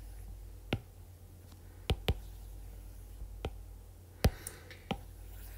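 Stylus tip tapping on a tablet's glass screen: about six sharp clicks at irregular intervals, over a faint steady low hum.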